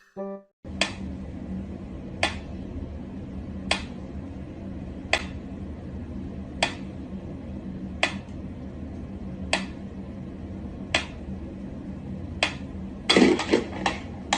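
Sharp clicks repeating evenly about once every one and a half seconds over a steady low hum, then a quick flurry of knocks near the end.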